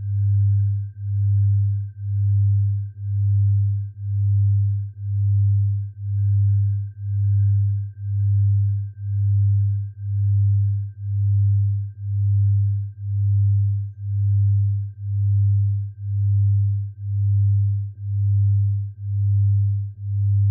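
Synthesized tinnitus-relief sound-therapy tone: a low pure tone swelling and fading in even pulses about once a second, over a faint steady high tone.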